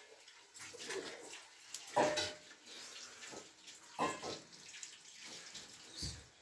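Water splashing and pouring in irregular bursts, about every second or two.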